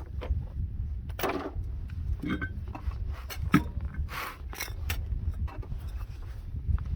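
Scattered clinks, knocks and scrapes of metal hand tools and parts being handled during the teardown of a front axle, over a low steady rumble.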